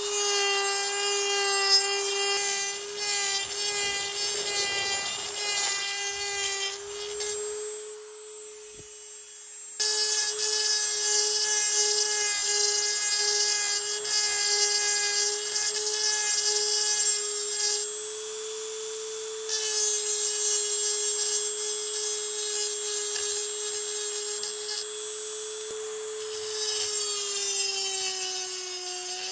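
Dremel 3000 rotary tool running at full speed with a tungsten carbide bit, grinding and smoothing the metal exhaust port of a two-stroke engine cylinder. A steady high motor whine with grinding under it, fading about eight seconds in and coming back abruptly about two seconds later.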